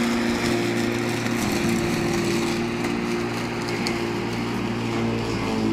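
Walk-behind lawn mower engine running steadily as it is pushed through grass, with an even hum.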